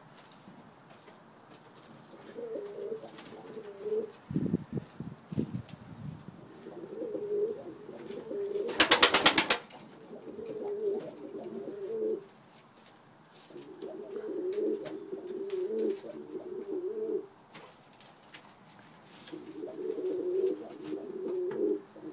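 Domestic pigeons cooing in several bouts of low, rolling coos. About nine seconds in comes a short, loud run of rapid wing flaps.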